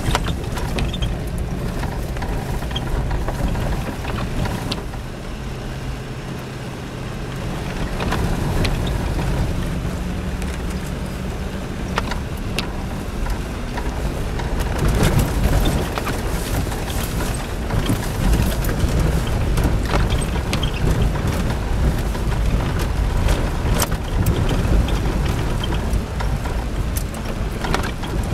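Jeep Cherokee XJ driving slowly over a rough wet gravel trail, heard from inside the cab: a steady engine hum with scattered knocks and rattles as the truck rocks over the bumps.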